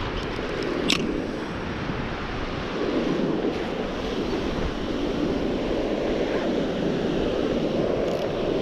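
Surf washing and breaking on a sandy beach, with wind buffeting the microphone. A single sharp click about a second in.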